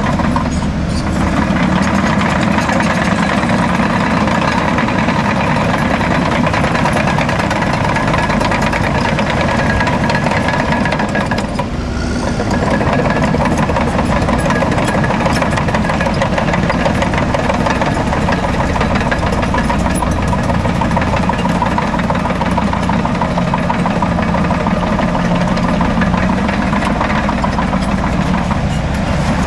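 Caterpillar D6M LGP crawler bulldozer's diesel engine running steadily, with a fine rattling texture throughout; the sound dips briefly about twelve seconds in.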